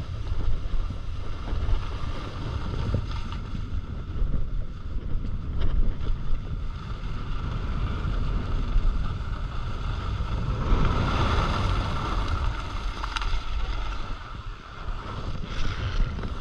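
Wind rushing over the microphone and skis running on groomed snow during a fast downhill run, with a louder swell about two-thirds of the way through.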